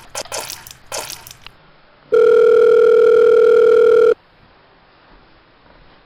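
Telephone ringing: a loud, steady electronic buzzing tone lasting about two seconds, which starts again right at the end. It is preceded by a few short hissing bursts in the first second and a half.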